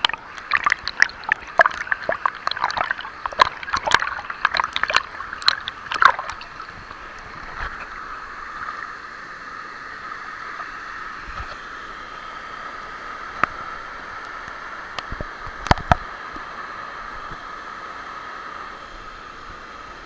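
River water splashing and sloshing right against a camera held at the water surface, with many sharp splashes for about six seconds. After that, a steady rush of flowing water from the cascades, with a few lone clicks.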